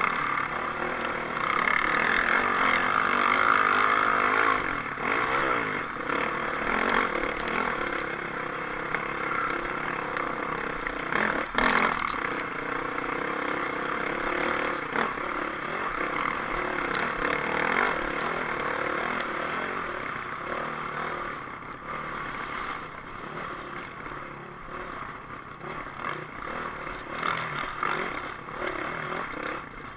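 Dirt bike engine heard from on board while riding a rocky race trail, its pitch wavering up and down with the throttle, over rattling and clattering from the bike on the rocks. One sharp knock about twelve seconds in.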